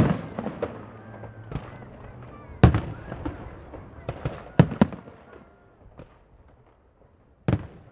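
Fireworks display: aerial shells bursting overhead in sharp bangs. There is a loud bang at the start, another about a third of the way in, a close pair just past halfway and one more near the end, with lighter bangs in between.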